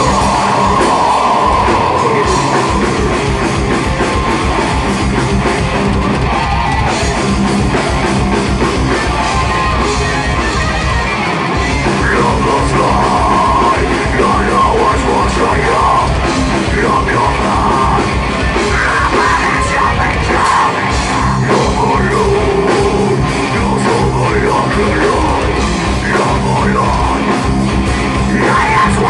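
Heavy metal band playing live and loud: distorted electric guitars, bass and a drum kit driving a steady beat, with a vocalist shouting into the microphone.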